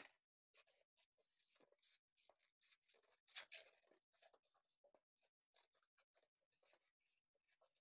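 Faint snips of scissors cutting through folded paper, a run of small irregular cuts with paper handling, louder for a moment about three and a half seconds in.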